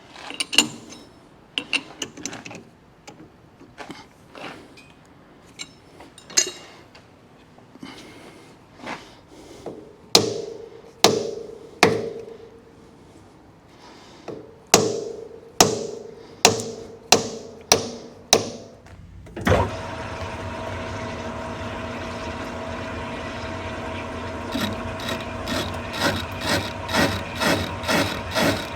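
A steel pipe flange being set into a lathe's 3-jaw chuck: a series of separate knocks and taps, several of them ringing briefly. About two-thirds of the way through, the Precision Matthews lathe starts and runs steadily, and a few seconds later a regular beat comes in, about two a second.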